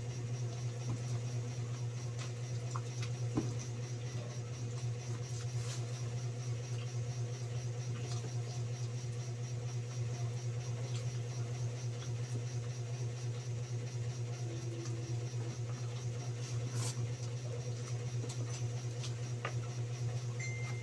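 A steady low hum, with faint small clicks and rustles of roast chicken being pulled apart by hand on a plastic-lined plate and chewed.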